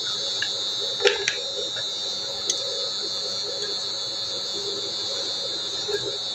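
Prestige induction cooktop whining steadily at a high pitch while heating the water bath of a double boiler, with a few light clinks of soap-base cubes against the steel bowl, the clearest about a second in.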